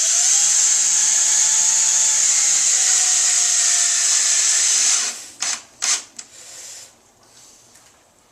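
Cordless power drill driving a screw into a wood backing strip behind drywall, running continuously for about five seconds, its motor pitch sagging slightly as the screw draws in. It stops, followed by a few short knocks.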